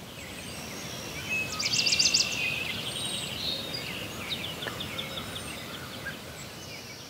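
Outdoor ambience: a steady background hiss with birds singing over it, a fast trill about two seconds in and a quicker run of chirps a little past the middle.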